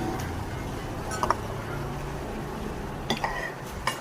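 Cutlery clinking against a plate during eating: a few sharp clinks, about a second in, near three seconds and near the end.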